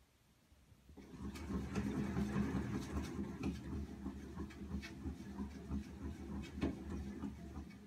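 Cat exercise wheel turning as a cat walks in it: a steady low rolling rumble with scattered light clicks. It starts about a second in and stops near the end.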